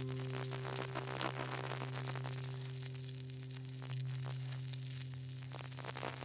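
Quiet ambient music: a held low drone with a few steady tones above it, overlaid with a dense crackling, static-like texture of small clicks. The drone swells slightly about four seconds in.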